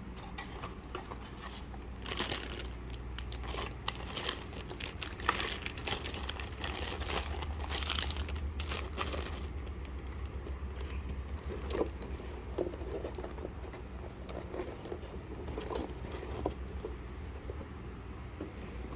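Packaging being crinkled and torn open by hand: a dense run of rapid crinkling from about two seconds in to about nine and a half seconds, then softer, scattered rustling and handling.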